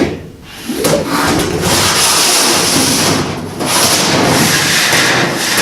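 An 18-gauge sheet steel floor panel scraping and rubbing against the car's floor structure as it is shimmied into place. The scraping starts a little under a second in, with a brief break about three and a half seconds in.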